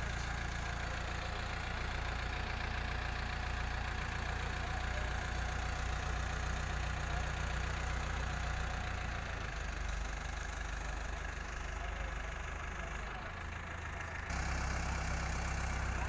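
Diesel engine of an Escorts Hydra 14 mobile crane running steadily. Near the end it drops briefly, then comes back a little louder.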